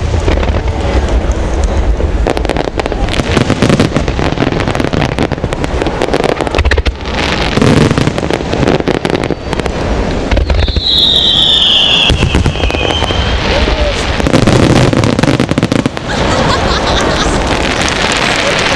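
Fireworks bursting in rapid, overlapping succession, a dense barrage of bangs and crackle. About ten seconds in, a high whistle slides down in pitch for a couple of seconds.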